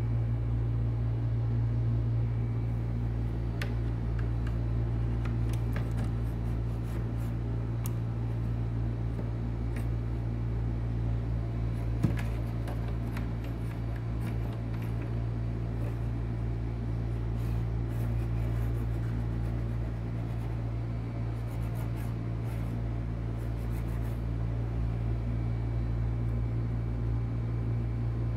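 A steady low hum runs under scattered faint clicks and light taps, with one sharper knock about twelve seconds in.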